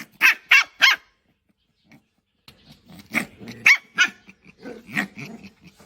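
A small dog yapping: three quick high-pitched yaps a third of a second apart, then after a pause of over a second, a further irregular run of yaps.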